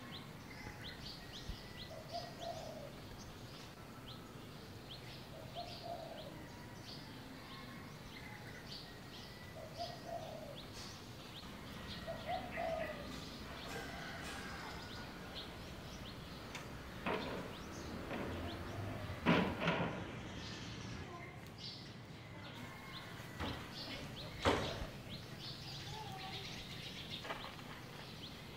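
Birds chirping and calling, many short high chirps throughout, with a lower short call repeating every few seconds in the first half. Two louder sharp knocks stand out, one about two-thirds of the way through and another near the end.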